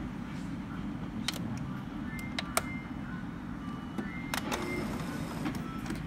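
Epson L385 inkjet printer powering up: its mechanism makes a series of sharp clicks and short motor whines in the middle seconds, over a steady low rumble.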